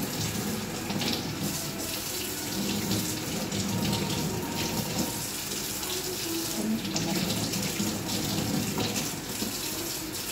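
Kitchen tap running in a steady stream into the sink as button mushrooms are rinsed by hand under it.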